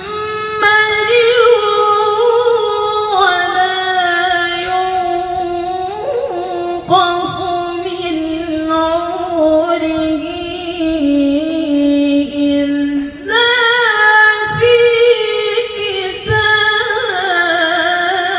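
A woman reciting the Qur'an in the melodic tilawah style through a microphone, holding long ornamented notes with a wavering pitch. The phrase steps lower in stages, leaps higher about thirteen seconds in, then glides down near the end.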